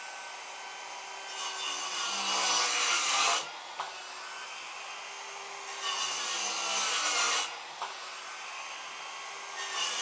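Bosch GKS 185-Li cordless brushless circular saw with a Bosch Standard for Wood blade making three quick crosscuts through an inch-thick (2.5 cm) board, each cut about two seconds long. Between cuts the motor runs free with a steady whine. The pitch sags under each cut and climbs back after it. The saw cuts easily, "like through butter".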